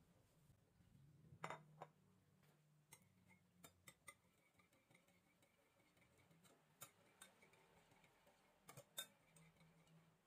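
Faint, irregular clicks and clinks of a wire whisk knocking against a glass mixing bowl while egg yolks are beaten, over near silence.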